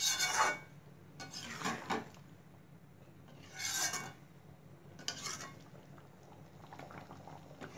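A metal ladle scraping and stirring in a pot of simmering curry, four short strokes with quiet between them.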